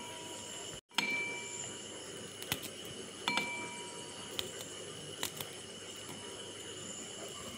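Thin aluminium bowl clinking about five times as ginger and garlic are cut into it with a knife; two of the clinks ring briefly like a small bell. A steady hiss runs underneath.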